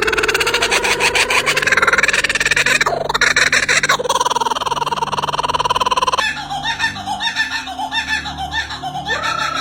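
A pet bird making a long, raspy, buzzing call that rises and falls in pitch, changing about six seconds in to a run of short repeated notes.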